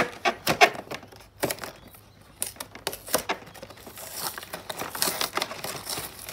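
Plastic wrapping on a cardboard Pokémon card box being picked at and torn off: a run of sharp crackles and crinkles, then a longer tearing rip about four seconds in.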